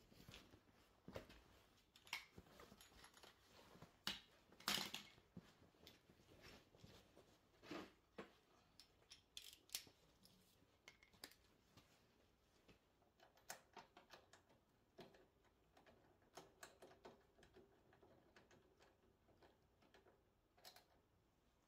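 Faint, scattered metal clicks and clinks of a ratchet and socket being handled while spark plugs are fitted on a small engine, with a few sharper taps.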